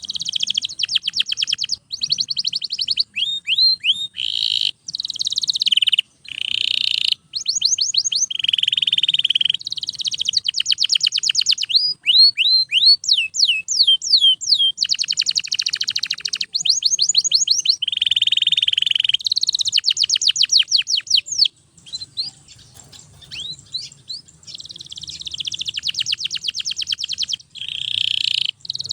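Domestic canary singing loudly and almost without pause: fast trills of rapidly repeated notes alternate with rising and falling sweeping notes, phrase after phrase, with a brief lull about two-thirds of the way through.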